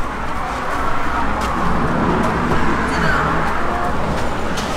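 Road traffic: a car passing on the adjacent road, its tyre and engine noise swelling to a peak about halfway through and then easing off, over a steady low rumble.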